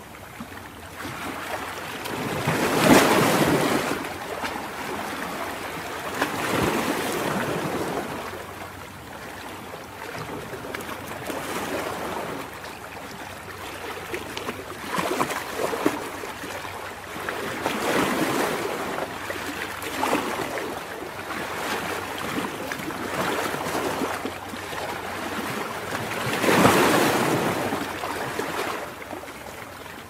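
Ocean surf washing over rocks: a constant hiss of churning water that swells and falls back every few seconds, the loudest surges about three seconds in and again near the end.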